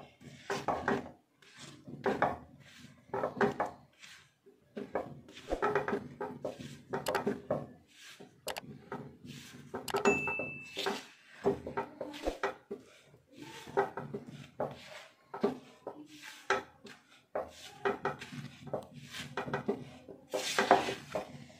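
Silicone spatula stirring and scraping besan and ghee around a nonstick kadhai in repeated strokes, about one or two a second, as the flour is slowly roasted in ghee on a low flame. A short high beep sounds about ten seconds in.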